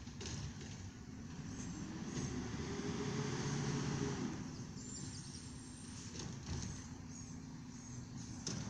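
Garbage truck's diesel engine down the street revving up for a couple of seconds, then settling back to a steady run.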